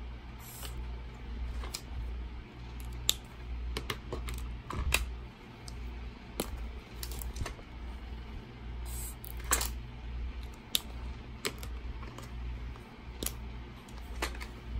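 Plastic highlighter caps clicking off and on and marker pens being handled, with felt tips swiping across notebook paper. Sharp clicks come every second or two, over a steady low hum.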